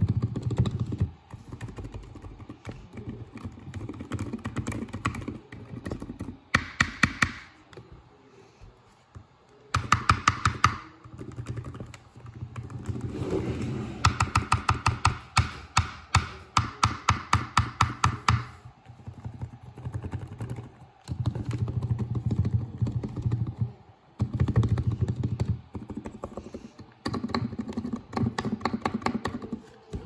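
Lubed Razer Huntsman Mini keyboard with optical switches being typed on in bursts: quick runs of key presses clacking about ten a second, broken by short pauses.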